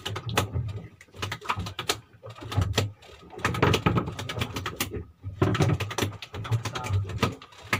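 Irregular knocks and clatter from gear and the cooler being handled on a small fishing boat's deck, over a low steady hum.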